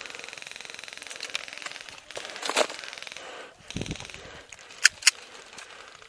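Airsoft gunfire: a steady rapid rattle of full-auto fire for the first three and a half seconds, then two sharp single shots about a quarter second apart near the end, the loudest sounds.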